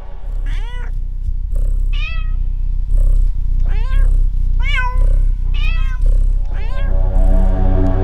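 Cats meowing: about six separate meows, one after another, over a steady low drone.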